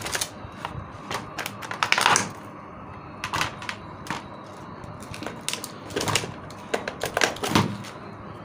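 Irregular clicks, knocks and short scrapes of a Moulinex blender's white plastic housing and its rusted motor being handled and set down on a table as they are pulled apart.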